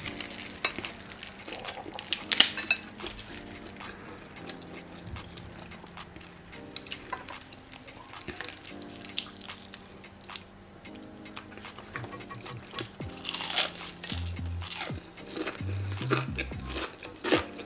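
Background music over eating sounds: a utensil clicking against a plate and crunchy bites, one sharp crunch about two and a half seconds in.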